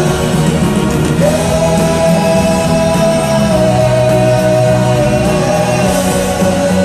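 Live pop band playing, with a long sung vocal note held over the band from about a second in.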